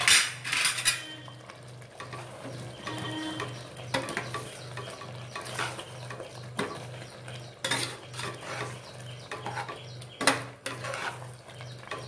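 A ladle stirring a thick curry with potato pieces in an aluminium pressure cooker, scraping the pot and knocking against its sides and rim now and then. A louder metal clatter comes in the first second.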